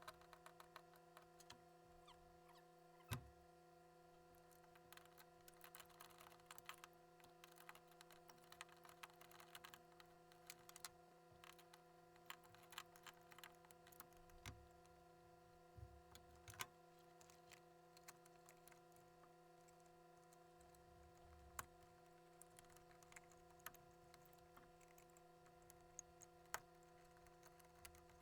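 Near silence over a steady low electrical hum, with scattered faint clicks and taps from hand work on the tail light parts and one louder knock about three seconds in.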